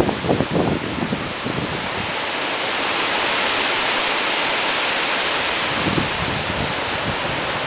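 Tropical-storm-force wind from the remnants of Hurricane Ike rushing steadily, with low thumps of wind buffeting the microphone near the start and end. The rush swells to its loudest about halfway through as a gust passes.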